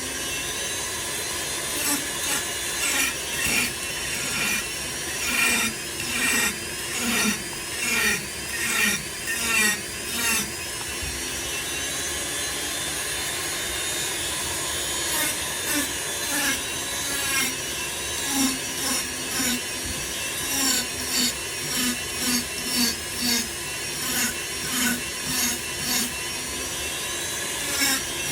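Foredom flexible-shaft rotary tool running steadily while its bit grinds and scrapes into wood in short repeated strokes, about one or two a second, with a smoother stretch of continuous cutting midway.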